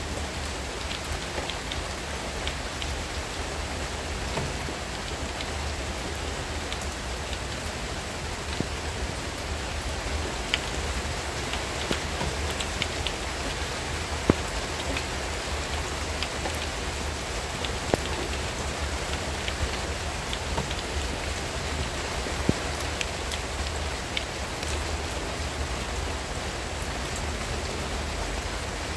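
Steady rain falling on palm fronds and broad leaves: a constant hiss dotted with the taps of single drops, a few of them louder.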